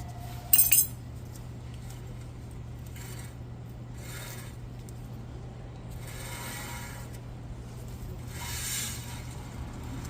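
Small metal brake parts clinking and rattling as the pads and their retaining clips are handled: one sharp clink about half a second in, then softer scrapes and rattles, over a steady low hum.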